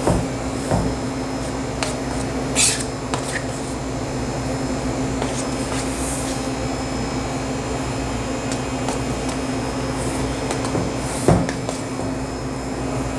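Steady machine hum with a constant low tone, typical of kitchen refrigeration or air conditioning. Over it come a few short scrapes and knocks of a spatula working gelato in a stainless steel pan, the loudest knock about eleven seconds in.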